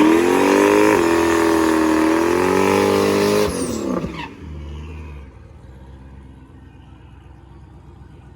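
Turbocharged Z28 Camaro engine held at raised revs, its pitch rising and dipping. About three and a half seconds in the revs fall away, leaving a much quieter steady low hum.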